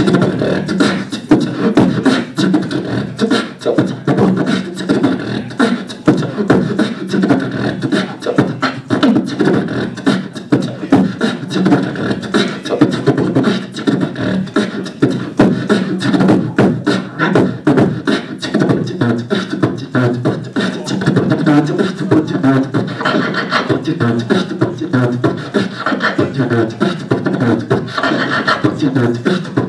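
Solo human beatboxing into a handheld microphone: a fast, unbroken stream of mouth-made kick, snare and hi-hat strikes laid over vocal bass tones.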